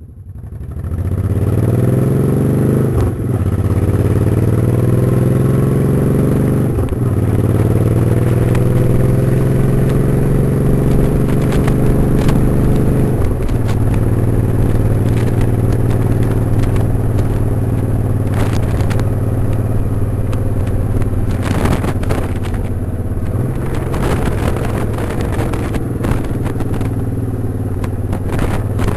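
Motorcycle engine accelerating through the gears, its pitch rising and dropping back at each shift about 3, 7 and 13 seconds in, then running steadily at cruising speed.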